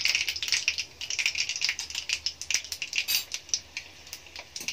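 Urad dal and popped mustard seeds frying in hot oil in a kadai, the tempering stage: a sizzle full of rapid, irregular crackles and pops that thins out toward the end.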